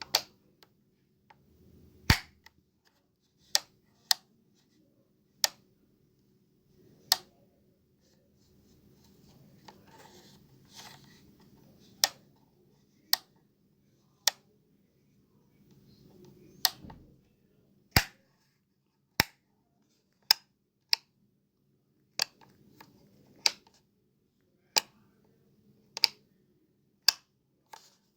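Light switch being flicked on and off again and again: single sharp clicks, one every second or two, with a pause of a few seconds about a third of the way in.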